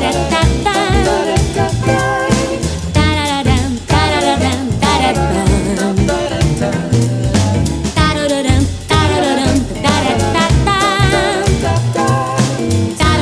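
Swing-style soundtrack music with a steady bass beat and a wavering melody line, with some singing.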